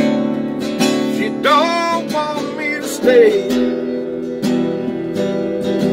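Acoustic guitar strummed in a steady rhythm, with a short wordless vocal glide about a second and a half in.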